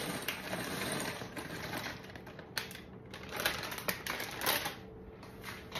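Dry penne pasta poured from its bag into a pot of boiling water: a dense rattling hiss for about the first two seconds, then a few separate sharp clicks and knocks.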